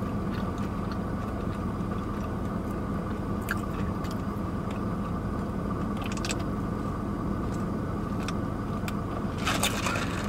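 Steady hum of a car running while parked, heard from inside the cabin, with a few soft sips and mouth clicks from drinking soda through a straw.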